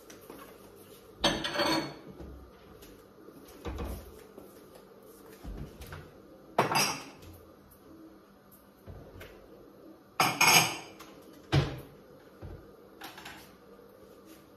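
Dishes and cutlery clattering in about half a dozen separate clinks and knocks, the loudest about a second in, about six and a half seconds in and about ten seconds in.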